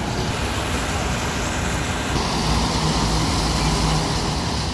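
Steady roadside traffic and truck engine noise, with a low engine hum coming in about halfway through.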